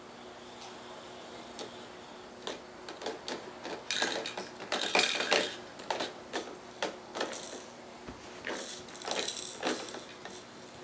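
Plastic toys on a baby's activity-jumper tray clicking and rattling as the baby plays with them, in quick irregular bursts, busiest about four to five seconds in.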